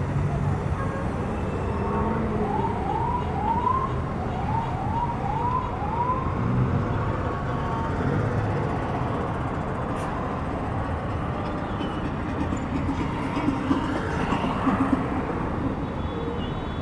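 Steady city street traffic rumble, with a siren heard a few seconds in giving about seven quick rising whoops in two short runs.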